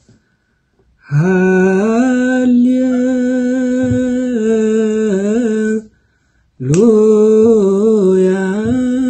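A solo male voice chanting an Ethiopian Orthodox hymn in Ge'ez, drawing syllables out into long held notes with small wavering ornaments. After about a second of quiet comes one long note with a quiver near its end, a short breath, then a second held note that slides up into its pitch.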